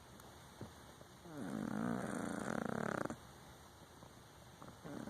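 An Exotic Shorthair cat, a flat-faced Persian-type breed, snoring in its sleep. One long buzzy snore on a breath lasts almost two seconds, starting about a second and a half in. A few faint clicks follow near the end.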